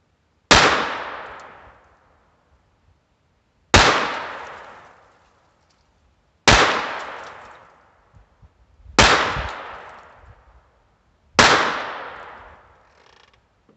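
Five shots from a Browning Buck Mark .22 LR pistol firing Battleborn rounds, spaced about two and a half seconds apart, each a sharp crack that dies away over about a second and a half.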